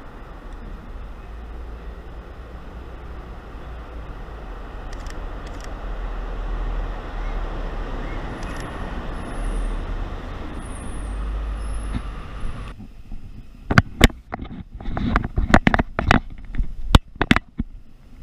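Road traffic rumbling, growing louder midway as a vehicle passes, with a faint high brake squeal. About two-thirds in the traffic sound cuts off and is followed by a run of sharp knocks and bumps close to the microphone.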